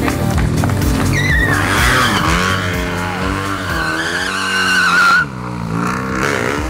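Motorcycle engine revving while the rear tyre squeals in a long, wavering screech as the bike is spun in tight circles in a burnout drift; the squeal cuts off suddenly about five seconds in.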